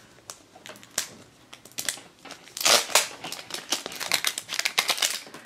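Plastic wrapper being torn and peeled off a toy blind-capsule ball. Scattered crackles come first, then dense crinkling runs about halfway through and again near the end.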